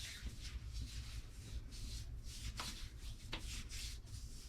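Hands rubbing moisturizing face oil into bare skin on the arms: soft rubbing strokes, a couple a second.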